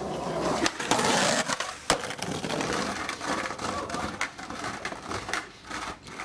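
Skateboard wheels rolling over rough concrete and paving, with sharp clacks from the board, one loud snap just under two seconds in.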